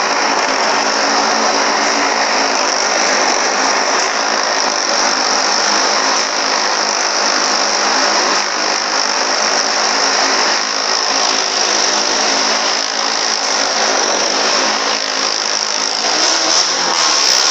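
Motorcycle engine running loud and steady as it rides the wall of a wooden wall-of-death barrel, the sound thick and continuous.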